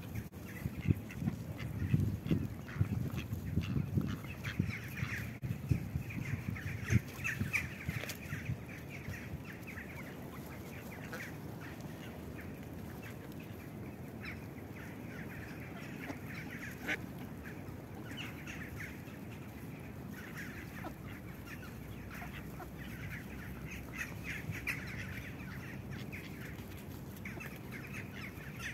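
Flock of mallards quacking and chattering in scattered bursts as they feed. A low rumbling buffeting is loudest in the first several seconds.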